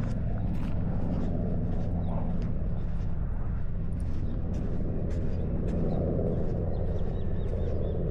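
Honda CBR650R's stock inline-four engine running at a steady, even speed while riding, with no revving or gear change.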